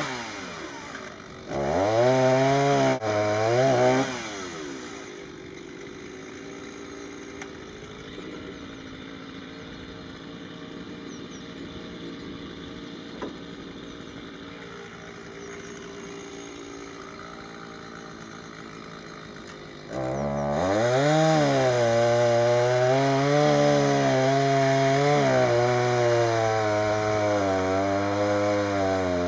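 Two-stroke chainsaw revving twice in short bursts, then idling for about sixteen seconds. From about twenty seconds in it runs at full throttle, its pitch dipping and recovering as it cuts into the trunk of a dead ash tree.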